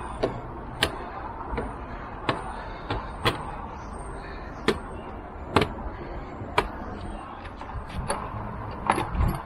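Sharp, irregular clicks and taps of small plastic and metal parts being handled while fitting the mounting plate of a Givi top-box base, about a dozen over several seconds, over a low steady background rumble.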